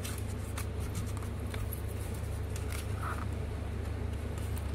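Faint clicks and light scraping of a Touch 'n Go card sliding into the plastic slot of a SmartTAG reader as it is handled, over a steady low hum.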